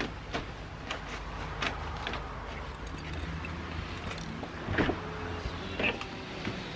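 Light knocks and rustles of bags being handled at a car's boot, then the car's front door is unlatched and swung open, with a sharp clunk about five seconds in and a smaller knock just after.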